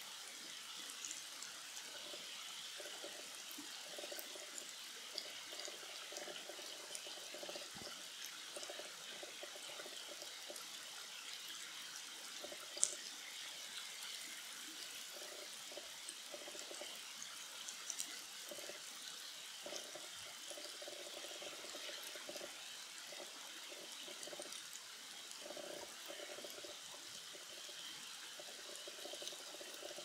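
Shallow stream flowing and burbling steadily, with scattered small ticks and one sharper click about halfway through.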